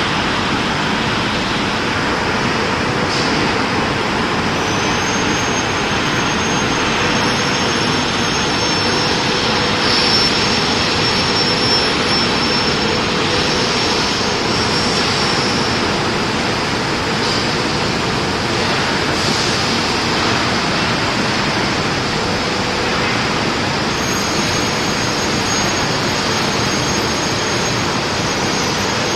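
Aluminium extrusion press line running: a loud, steady rush of industrial machinery with a steady hum and a high whine over it.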